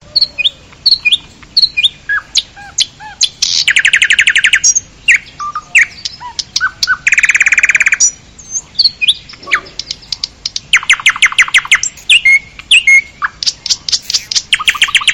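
Birds chirping and calling, with short whistled notes and four rapid, evenly paced trills of about a second each.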